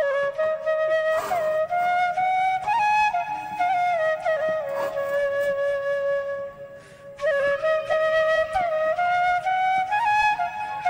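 Background instrumental music: a single melody line, breaking off briefly about six and a half seconds in before resuming.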